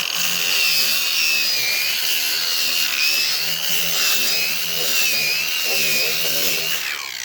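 Handheld power grinder running against cured fiberglass filler, its high whine wavering up and down as it is pressed onto the surface, then winding down just before the end.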